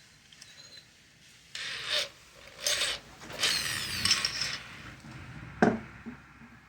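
Handling noise from the ceramic pot and drill after drilling: three or four short scraping, rubbing bursts, then a single sharp click near the end.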